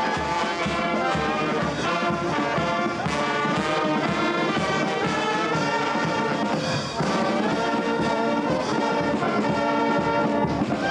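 A street brass band of tubas, clarinets and snare drum playing a tune, carnival-band style.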